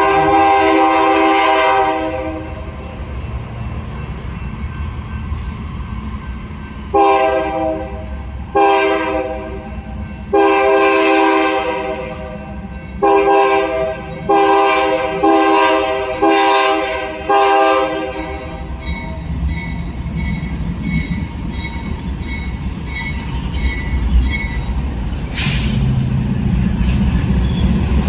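BNSF diesel freight locomotive's air horn sounding a long chord blast, then a string of seven short and long blasts in quick succession: a horn show, over the steady rumble of the passing grain train. After the horn stops, a high ringing pattern repeats about twice a second over the train noise.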